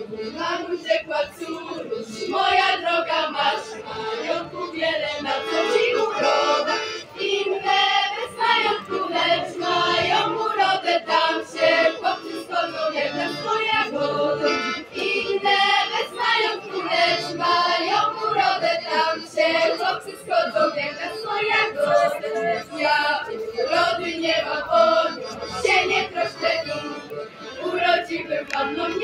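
A group of women singing a Łowicz folk song together, accompanied by accordion.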